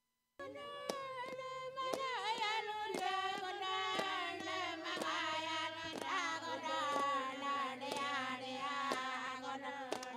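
Anangu Inma song: voices singing a traditional chant with falling, gliding phrases over a steady struck beat of about two strikes a second. It starts suddenly about half a second in.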